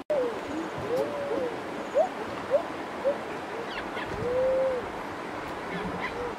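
An animal's whining calls: several drawn-out notes that rise and then fall, with a few short upward yelps between them.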